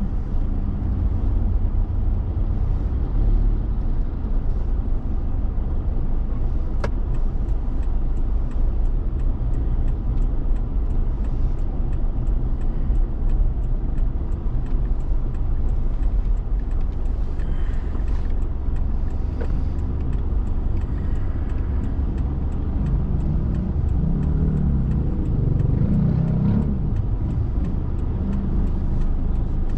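Car being driven: steady low engine and road rumble, with a stronger low drone for a few seconds near the end.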